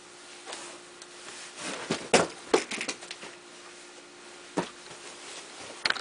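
Scattered light knocks and rustles from a person moving about close to the camera, a few of them in a cluster around two to three seconds in, over a faint steady background.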